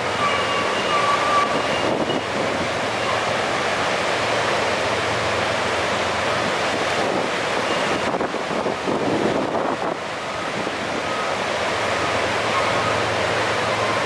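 Steady rushing of a large waterfall, the High Falls of the Genesee River, pouring into its gorge.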